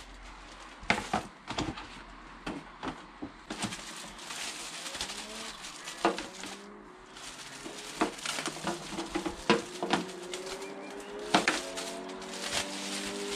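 Crinkling and rustling of the clear plastic bag as a new cabin pollen filter is unwrapped, with irregular sharp crackles.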